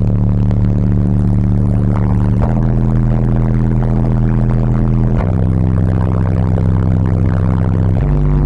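Two walled-off Phantom Soundz PS15 15-inch subwoofers playing bass-heavy music very loud inside the car, sustained deep bass notes that change pitch about every two and a half to three seconds, the bass meter reading around 143 dB.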